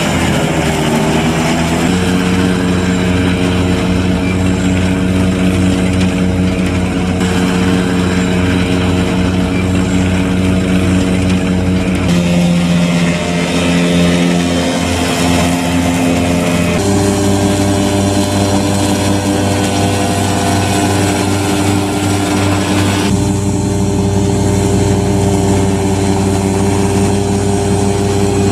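John Deere tractor's diesel engine running steadily at working speed while mowing grass with a front-mounted mower. The engine drone shifts in pitch abruptly several times.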